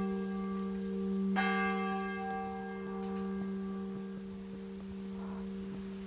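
Church bell struck once about a second and a half in, its deep hum ringing on and slowly fading.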